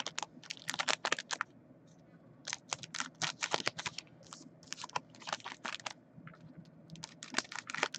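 Foil trading-card pack wrappers of 2017 Panini Donruss Optic baseball being cut open and handled: quick, irregular crinkling and clicking, with a brief lull about two seconds in.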